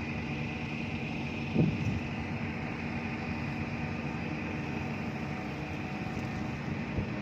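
Steady drone of a large running engine, with a few even tones over a low hum, and a single thump about a second and a half in.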